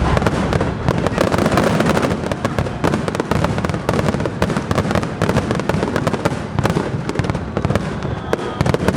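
Fireworks display: a dense, continuous barrage of shells crackling and banging in rapid succession over a steady rumble.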